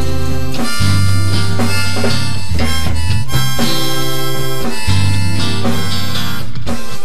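Instrumental passage of a song with no singing: a melody line of held notes over sustained low notes that change about every second or two.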